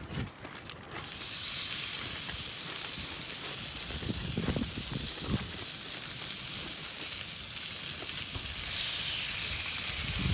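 Lamb chops sizzling loudly, starting abruptly about a second in as the meat meets the hot cooking surface, then a steady hiss.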